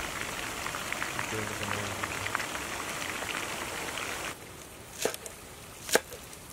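Whole fish frying in hot oil in a pan, a steady crackling sizzle. It stops abruptly after about four seconds, and two knife chops on a wooden cutting board follow, the second louder.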